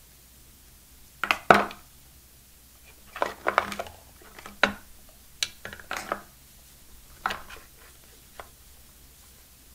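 Wired AKG earphones and their cable being handled over a cardboard phone box: a string of small clicks, taps and light knocks as the plastic earbuds and cable are lifted out and untangled. The loudest is a pair of knocks about a second and a half in.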